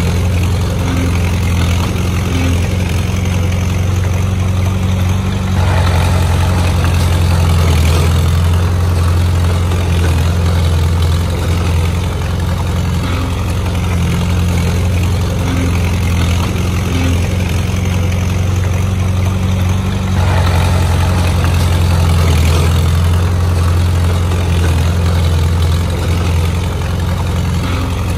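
Heavy construction machine's engine running steadily with a deep hum, swelling louder for several seconds about 5 seconds in and again about 20 seconds in.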